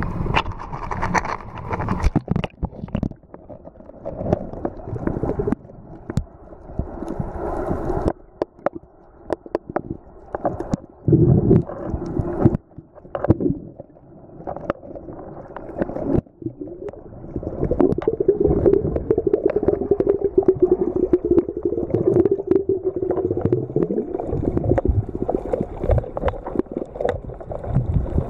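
Muffled sound of a waterproof camera held underwater: low gurgling and sloshing water with many scattered clicks and knocks, and a steady hum for several seconds past the middle.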